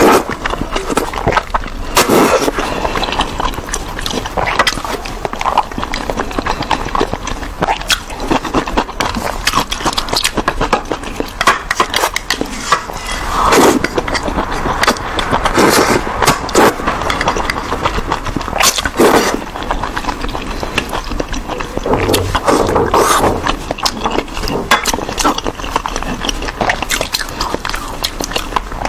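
Close-miked eating of instant noodles in broth: repeated wet slurps as noodles are drawn in, with chewing and many small wet mouth clicks between them.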